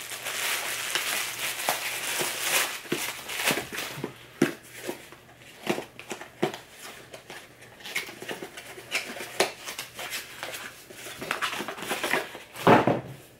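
Plastic bag wrapping crinkling as it is pulled off a small package, then the handling of a small cardboard box: scattered light taps and rustles, with one louder rustle near the end.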